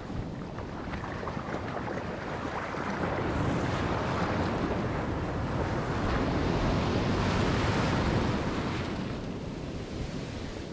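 Ocean surf washing up a shallow beach, with frothing foam and a wave breaking. It swells louder through the middle, then eases off.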